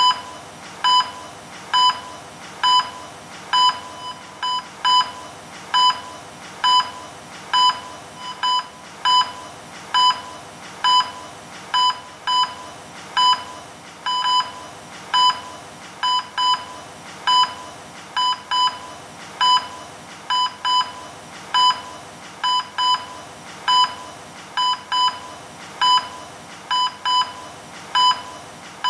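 Hospital patient monitor beeping about once a second, a short electronic tone with an occasional beep doubled, over a faint steady hiss.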